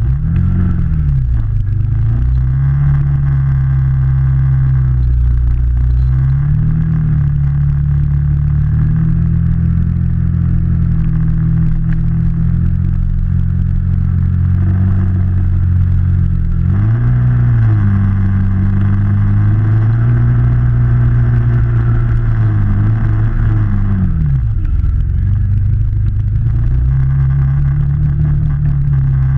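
Can-Am Maverick side-by-side engine running steadily at low revs as the vehicle creeps through a mud hole, its pitch dipping and rising briefly about four times. A higher whirring comes in twice for several seconds.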